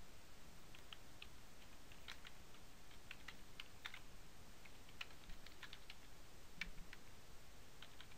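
Computer keyboard being typed on: faint, irregular key clicks in quick runs with short pauses between them.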